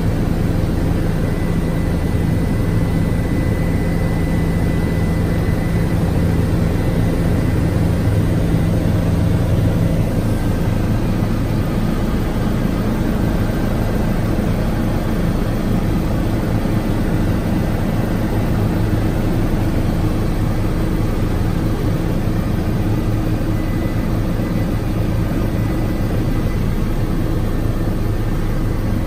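Cabin noise of a small propeller aircraft in flight: a loud, steady drone of engine and propeller. The engine note shifts slightly about ten seconds in.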